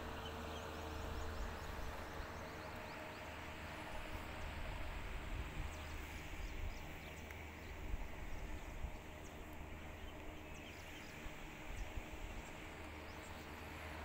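Rural outdoor ambience: wind rumbling on the microphone, a faint steady hum, and scattered short high chirps of distant birds.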